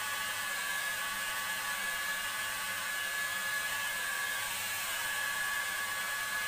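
Handheld hair dryer running steadily on damp hair, a constant rush of air with a steady high whine from its motor.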